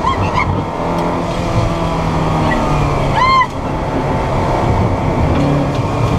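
Ferrari F430 Challenge race car's V8 engine running hard at varying revs through corners, heard from inside the cabin. A brief high squeal comes about three seconds in.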